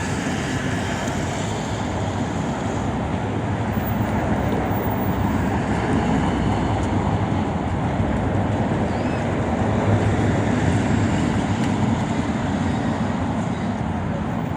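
Steady road traffic on a busy city avenue: a dense, continuous low rumble that swells slightly in the middle.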